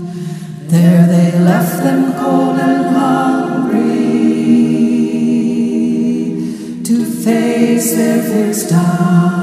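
Wordless choir-style singing: several voices hold and glide between notes in harmony over a sustained low note, coming in about a second in and briefly thinning near the seven-second mark.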